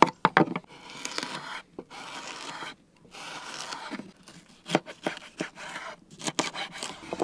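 Small knife cutting bell peppers on a wooden cutting board: sharp knocks of the blade striking the board, several in quick runs, between stretches of scratchy slicing through the pepper flesh.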